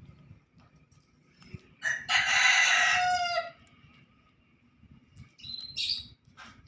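A rooster crowing once, a single loud crow of about a second and a half that ends on a falling note, followed near the end by a short high chirp.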